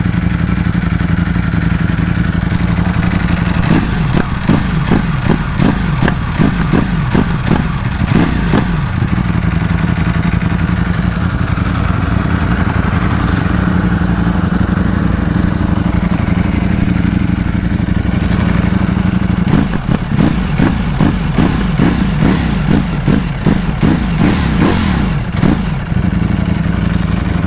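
Ducati 1103 cc Desmosedici Stradale V4 superbike engine idling, heard close at the exhaust. It is revved in quick throttle blips about four seconds in and again from about twenty seconds in, settling back to idle between.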